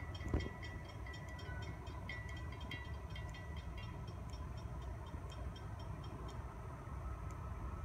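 Faint low rumble of a distant Florida East Coast freight train approaching behind its locomotives, with light high ticking that fades out about halfway through.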